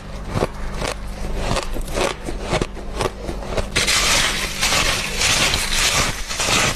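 Mouthfuls of squeaky freezer frost being bitten and crunched: a run of separate crisp crunches, turning into dense continuous crunching from about four seconds in. A steady low hum runs underneath.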